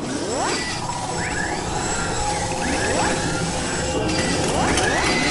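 Sound effects of an animated video intro: a series of rising whooshing sweeps, one every second or so, over a dense mechanical clattering noise.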